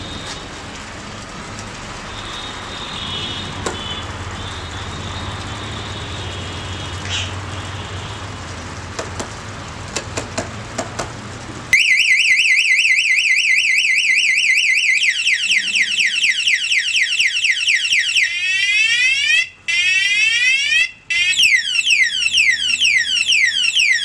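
Aftermarket motorcycle anti-theft alarm siren set off by touching the locked bike, sounding loudly from its small speaker buzzer after about twelve seconds of faint clicking and handling noise. It starts suddenly with a fast warbling tone, then cycles through rapid falling sweeps, with two brief breaks near the end.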